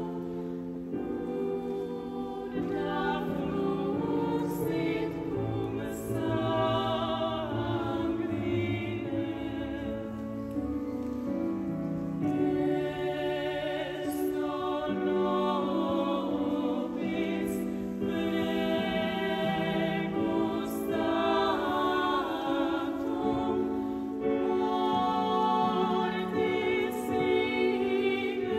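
Ensemble music in several parts: sustained chords over a bass line that moves in steps.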